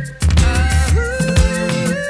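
Background music with a steady beat, a bass line and a held melody; it dips briefly just after the start and comes straight back.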